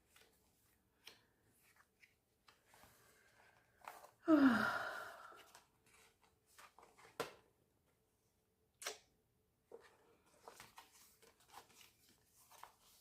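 Soft rustling and small clicks from a K-pop album's paper and plastic packaging being handled, with sharper clicks around seven and nine seconds in. About four seconds in, a short breathy vocal sound falling in pitch, like a sigh, is the loudest thing.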